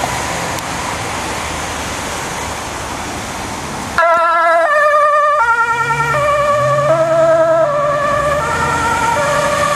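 Ambulance two-tone siren on an urgent call: it cuts in abruptly about four seconds in and switches back and forth between a high and a low tone, each tone wavering, about one and a half changes a second, with the vehicle's engine audible beneath as it passes. Before the siren there is a steady rushing noise.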